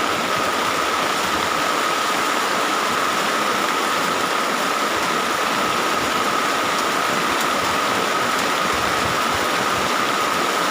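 Heavy rain pouring down in a steady, even rush. A thin steady high tone runs underneath it.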